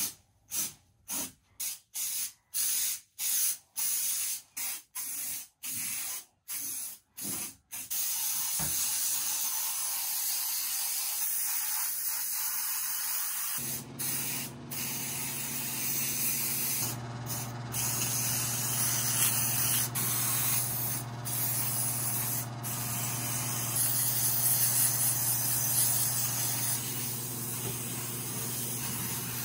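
Aerosol can of truck bed liner spraying: a quick run of short bursts, about one and a half a second, then continuous spraying from about eight seconds in. A low steady hum joins about halfway.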